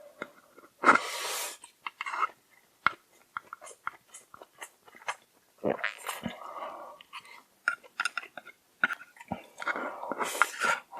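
Close-miked chewing of a noodle meal, with many small wet mouth clicks. Two loud rushing bursts stand out, about a second in and near the end.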